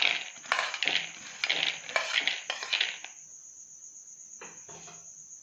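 Soaked whole green moong beans poured from a plate into a plastic bowl: the wet beans rattle and patter down in several bursts over the first three seconds, with a couple of weaker bursts near the end. Crickets chirp steadily in the background.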